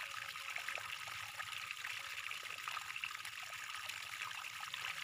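Faint, steady trickling water with fine crackles and drips throughout.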